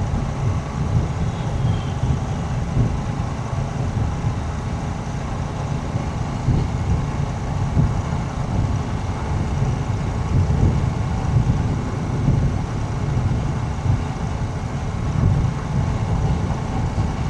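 Royal Enfield Shotgun 650's parallel-twin engine running at a steady pace while the motorcycle is ridden, a low rumble with road noise.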